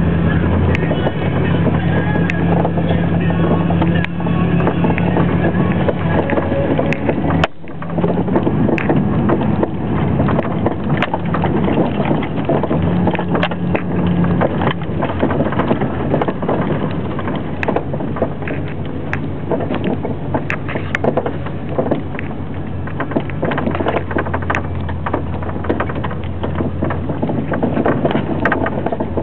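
Ford F-150 pickup's engine running as it drives over rough dirt and rock, heard from inside the cab, with many short knocks and rattles throughout.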